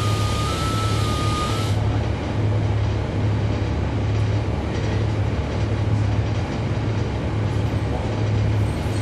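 Inside a 2011 NABI 40-SFW transit bus, its Cummins ISL9 diesel engine running with a steady low drone. For the first couple of seconds an electronic beep alternates between two close pitches. The beep then stops, and at the same moment a brighter hiss cuts off.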